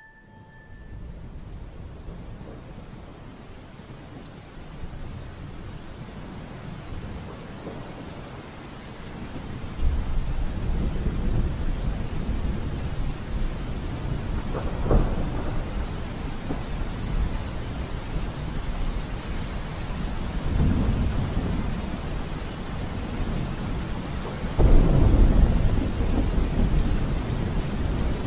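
Steady rain with rolls of thunder. The low rumble builds about ten seconds in, a sharper clap comes around fifteen seconds, and a louder roll of thunder comes near the end.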